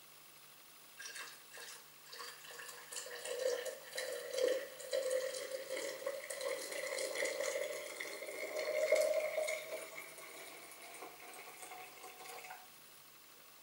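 Warm water poured from an enamel saucepan into a glass jar: a steady splashing stream. It starts about a second in, rises slightly in pitch as the jar fills, and stops shortly before the end.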